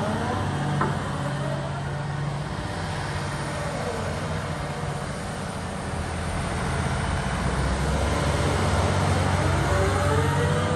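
Liebherr R946 SHD excavator running at a steady low engine hum, with a whine that rises and falls in pitch near the start and again near the end, then holds on a steady tone.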